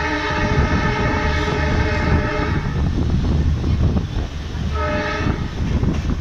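EMD diesel locomotive's horn sounding: a long blast that ends about two and a half seconds in, then a short toot about five seconds in, over the steady low rumble of the train running along the track.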